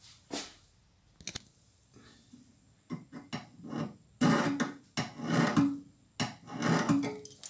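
Steel dividers scribing an arc on a steel bracket clamped in a vise: a few light metal clicks, then about three scratchy strokes of the point across the metal.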